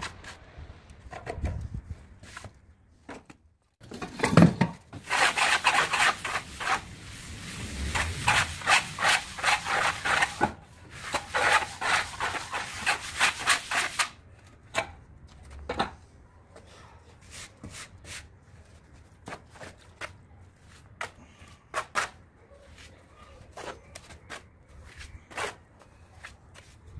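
A mason's trowel rubbing and scraping over fresh cement render, in a dense rhythmic run from about five seconds in. Near the middle it gives way to scattered light taps and scrapes of the trowel against mortar.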